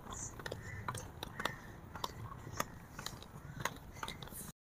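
Faint, irregular clicking and clattering of inline skate wheels rolling over brick paving, several skaters together. The sound cuts off suddenly near the end.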